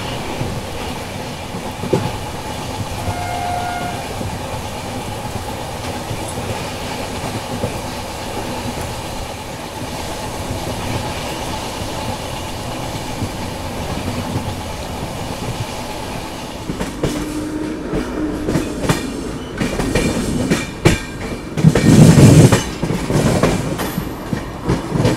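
Rajdhani Express train running at speed, with a steady rumble of wheels on the track and a brief horn note about three seconds in. From about two-thirds through, the wheels clatter over rail joints and points in quick clicks, and a loud rush of noise comes near the end.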